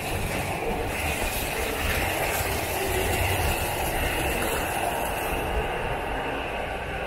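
A train passing on the rails: a steady rumble with a high hiss that dies away about five and a half seconds in.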